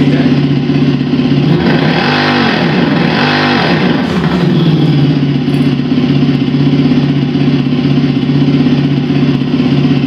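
Simulated motorcycle engine sound played by an engine-sound speaker module fitted to a Super Soco electric motorcycle: a steady idle with two short revs, about two and three seconds in.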